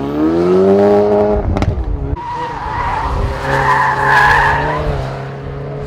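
A car engine revs up hard, then gives a sharp crack as the revs drop about a second and a half in. The tyres then squeal for a couple of seconds as the car corners on the circuit, the engine running on at steady revs underneath.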